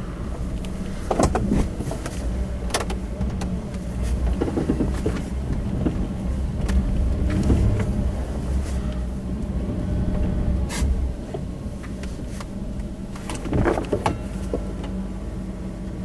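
Vehicle running, heard from inside the cab: a steady low rumble and hum, with scattered short knocks and clicks.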